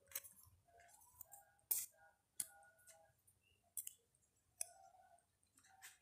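Faint, scattered clicks and taps of paper being handled and pressed down on a table, about six sharp ones spread irregularly, as torn paper pieces are glued onto a sheet with a plastic glue bottle.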